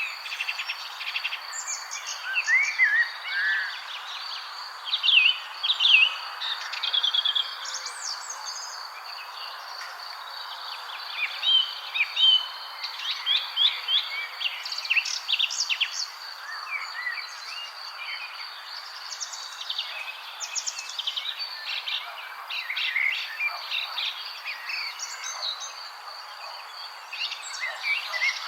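Several songbirds singing and chirping, many overlapping short whistles and trills, over a steady hiss and a thin continuous high tone that may be an insect.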